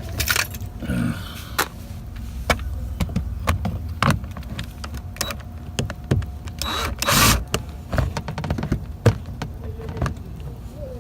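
Scattered small clicks and scrapes of a Phillips screwdriver working a screw out of a car's inner door panel, with a short louder rasp about seven seconds in.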